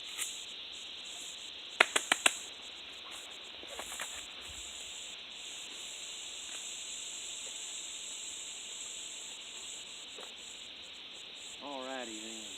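Steady high-pitched insect-like chirring hiss with the chainsaw stopped. About two seconds in come four quick sharp clicks, and near the end a short wavering call.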